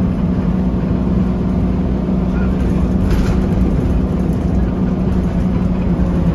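Alexander Dennis Enviro300 bus's diesel engine idling steadily, an even low hum heard from the rear seats inside the saloon. A faint brief hiss about three seconds in.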